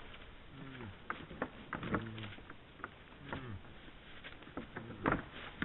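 Red deer stags sparring: their antlers click and clatter in irregular knocks, the loudest clash about five seconds in. Between the clashes come several short, low grunts.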